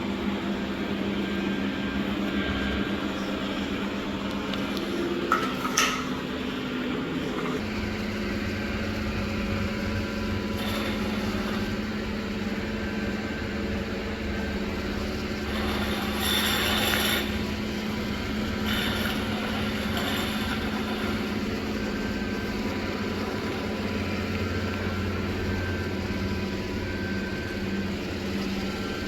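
Dreame D10S Plus robot vacuum cleaner running, a steady motor and brush hum. There are a few clicks about five seconds in, the hum shifts about seven seconds in, and a brief louder rush of air comes around the middle.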